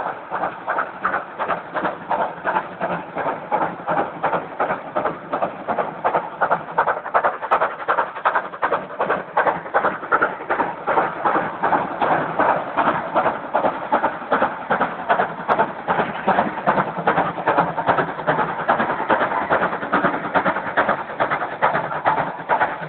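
Two steam locomotives, LNWR Coal Tank 58926 and 49121, double-heading a passenger train and working hard: steady rhythmic exhaust chuffs, about two beats a second, getting louder and more crowded about six seconds in as the two engines' beats overlap.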